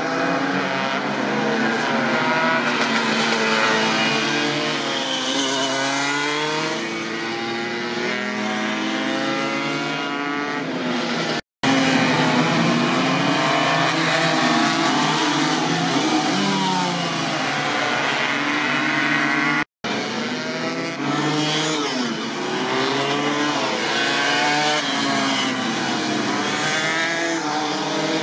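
Several racing Vespa scooters' tuned two-stroke engines revving hard through corners, many engine notes overlapping, each rising and falling in pitch as they accelerate and shift. The sound cuts out for an instant twice.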